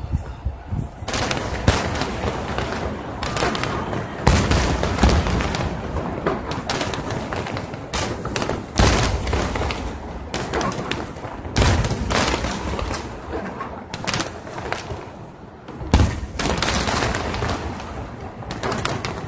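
A fireworks display in full barrage: a dense, continuous run of shell bursts and crackling, with heavier booms standing out every few seconds. It starts a little thinner and becomes dense about a second in.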